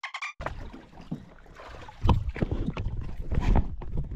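Small boat on open water: a wash of wind and water noise with irregular low thumps, louder from about two seconds in, after a brief break at the start.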